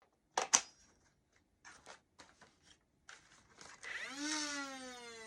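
Two sharp clicks, then a few light handling clicks, then about four seconds in a small electric motor whines up, its pitch rising briefly and then slowly sinking.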